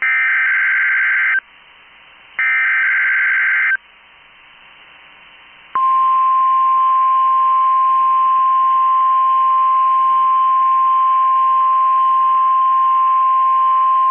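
NOAA Weather Radio Required Weekly Test: the last two of the three SAME digital header bursts, harsh warbling data bursts about a second and a half long, a second apart. About six seconds in, the steady 1050 Hz weather radio warning alarm tone starts.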